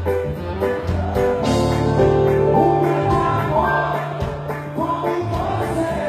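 Live reggae band playing with a steady beat and a strong bass line, and a man singing from about two and a half seconds in.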